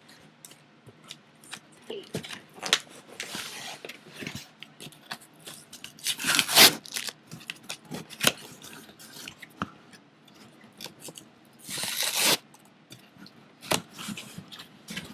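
A shipping package being opened by hand: snips, scraping and rustling of packaging, with two louder stretches of tearing about six and twelve seconds in.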